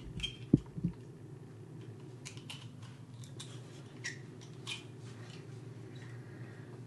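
Light clicks and taps of a metal spoon scraping inside the shell of a balut egg, with one sharper knock about half a second in.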